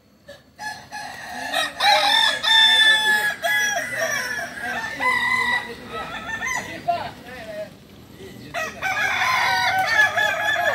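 Several Kukuak Balenggek roosters crowing over one another, their long crows broken into a run of stepped notes. The crowing pauses briefly about three quarters of the way through, then starts again.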